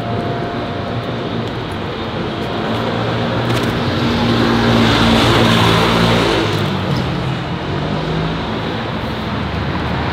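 City street traffic: a motor vehicle's engine hums steadily, and a vehicle passes close by, growing louder to a peak about halfway through and then fading.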